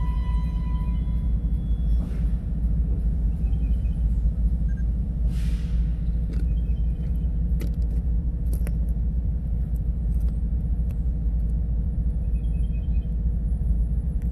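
Steady low rumble, with a brief hiss about five seconds in and a few short high chirps.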